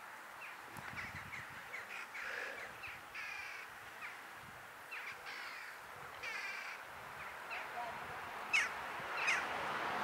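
A flock of greater flamingos calling while feeding, giving many short calls one after another, with two louder, sharper calls near the end.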